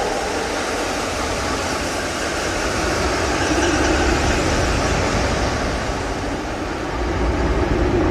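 Steady rumble and noise of a moving vehicle, train-like, with a faint low tone that grows stronger in the second half.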